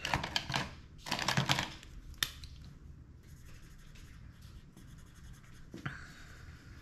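Paper bills rustling in two short bursts as they are handled, a sharp tap a little after two seconds, then faint steady scratching of a pen writing on paper.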